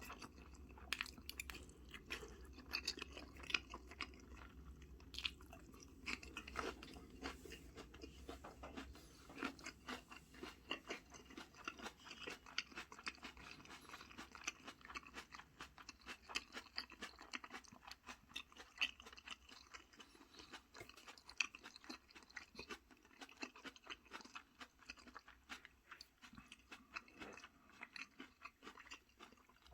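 Close-miked chewing by a person eating a home-cooked meal: wet mouth sounds with many small irregular clicks and soft crunches.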